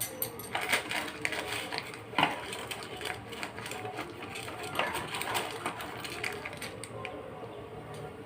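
Kitchen utensils and dishes being handled: irregular light clinks, knocks and scrapes, the sharpest about two and five seconds in, over a faint steady hum.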